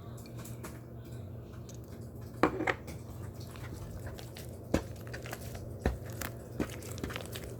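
Foam being pressed and crushed close to the microphone, giving scattered crunchy clicks and crackles over a low steady hum. The loudest crunch comes about two and a half seconds in, followed by single sharper clicks.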